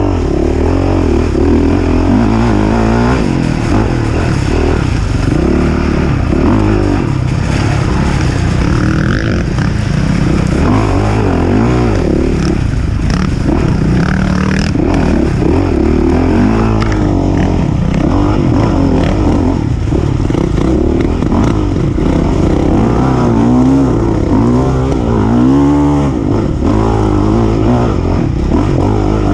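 Off-road racing dirt bike engine revving up and down over and over, its pitch climbing and dropping every second or two as the throttle is worked.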